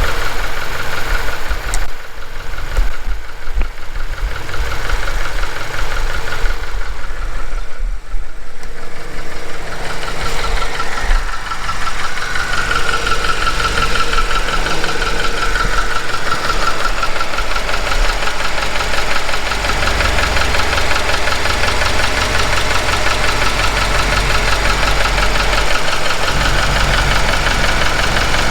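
Subaru Levorg's CB18 1.8-litre turbocharged flat-four idling with a rapid, steady clicking and tapping from the left side of the engine. The owner finds it about three times louder than the faint injector ticking of another car of the same model; the dealer calls it individual variation, not a fault.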